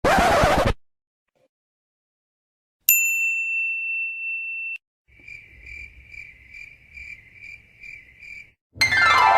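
Sound-effect sequence: a brief scratchy burst at the start, then a single ding of a desk bell ringing for about two seconds before it cuts off. Then cricket chirps, about two a second, and near the end a loud musical effect with a falling pitch sweep begins.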